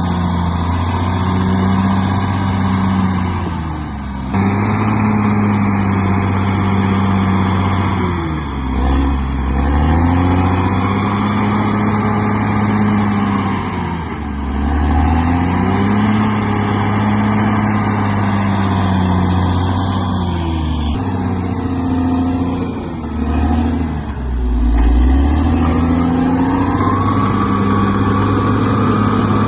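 Bulldozer's diesel engine working hard under load. Its pitch sags and recovers about every five seconds as it lugs and then picks up again, with a high whistle over the engine note.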